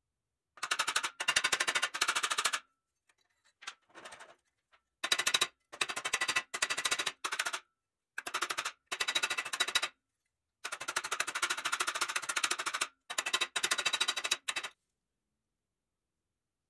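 Rapid metal-on-metal hammer taps on a pressed-steel toy truck chassis clamped in a bench vise, in quick runs of one to two seconds with short pauses between.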